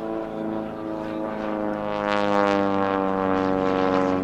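Super Chipmunk aerobatic plane's piston engine and propeller droning in flight overhead, its pitch sagging slightly. It grows louder with a rush of propeller noise about two seconds in.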